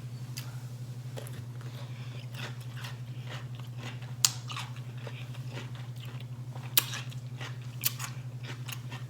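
Person biting and chewing a pickle, with loud crisp crunches about four seconds in and twice more near the end, and softer wet chewing clicks in between. A steady low hum runs underneath.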